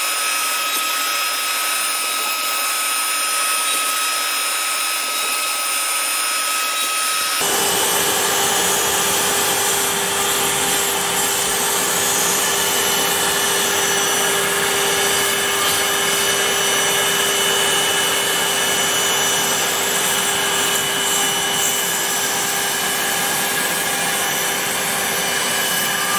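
Spindle of a home-built CNC router running, its end mill cutting a foam tailplane core: a steady whine over a rushing noise. About seven seconds in the sound changes abruptly to a fuller, lower hum with a different whine.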